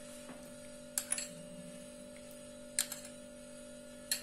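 A few light, sharp clicks of a utensil against a bowl as curd is added to flour, over a steady electrical hum.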